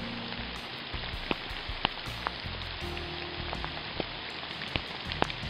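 Campfire crackling in the rain: sharp pops every second or so over a steady hiss of falling rain.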